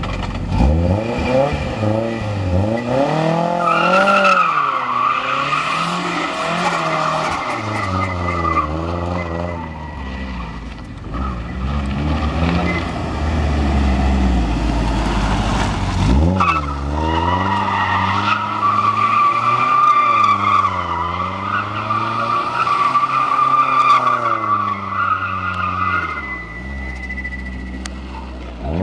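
Nissan Silvia S15 drift car's engine revving up and down repeatedly while its rear tyres squeal in long stretches as it slides sideways in circles. The squeal runs from about three seconds in to nine, eases off while the engine drops lower, then comes back after a sharp rev about sixteen seconds in and lasts until near the end.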